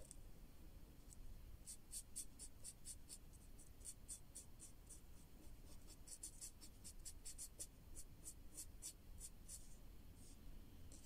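Faint scratching of a felt-tip marker rubbing back and forth on paper in quick short strokes, about five a second, colouring in a small area. It starts about two seconds in and stops near the end.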